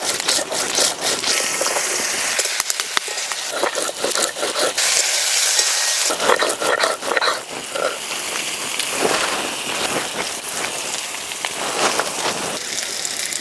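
Food frying in hot oil in a pan: a steady, busy sizzle with many small crackles and spits.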